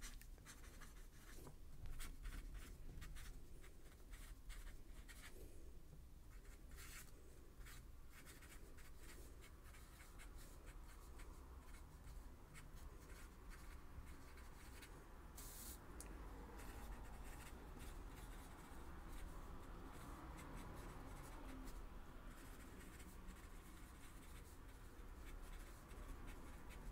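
Faint scratching of a pen writing on a sheet of paper, in many short strokes.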